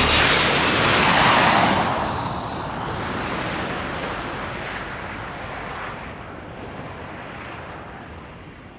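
Jet aircraft flying past: a loud rushing jet roar that peaks about a second in, then fades away steadily over the following seconds.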